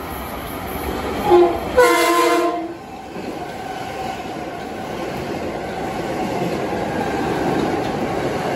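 Metro-North electric commuter trains (a Budd M3A and a Bombardier M7A) passing at speed on adjacent tracks. One train's multi-tone horn gives a short toot about a second in and a longer blast right after, then the steady rush and rumble of the cars and wheels going by close, growing louder toward the end.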